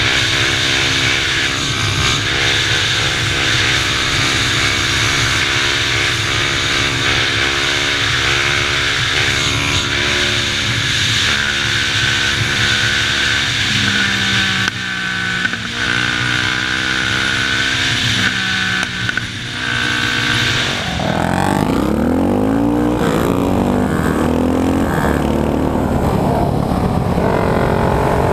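Yamaha sport quads' single-cylinder engines running hard at road speed, with wind rushing over the helmet microphone. The engine note shifts up and down with throttle and gear changes. In the last several seconds, engine pitch sweeps up and down as a second quad pulls alongside.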